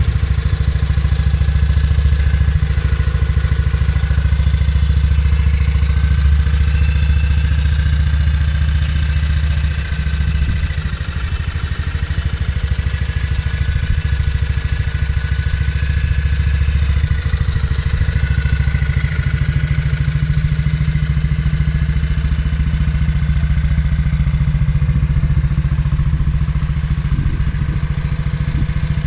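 1952 Ariel Colt 200cc single-cylinder four-stroke engine idling steadily, dipping slightly in level about ten seconds in.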